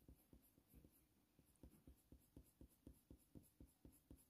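Faint, rhythmic scratching of a Faber-Castell Polychromos coloured pencil being stroked back and forth on hot-press watercolour paper while shading. The strokes are sparse at first, then settle at about four a second from a second and a half in.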